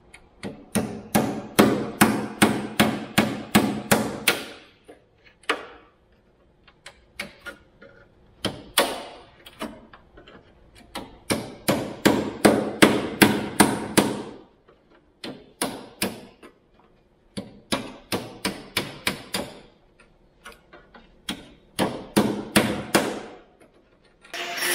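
Hand hammer striking sheet steel at the edge of a Holden Torana door shell, in quick runs of about three to four ringing blows a second with short pauses between runs: panel work shaping the edge where a repair patch is fitted.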